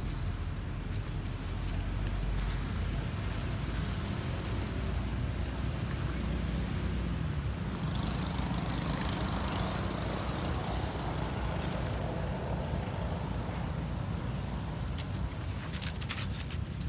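An engine running steadily with a low hum, and a swell of hiss about eight to ten seconds in.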